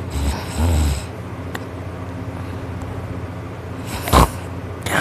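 Loud snoring from a deep sleeper: two low, rumbling snore pulses in the first second, a quieter stretch of breathing, then one short, sharp snort about four seconds in.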